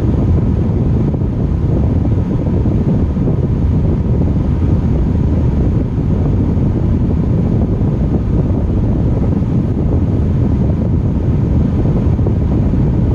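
Wind buffeting the microphone: a steady, loud low rumble with no clear breaks.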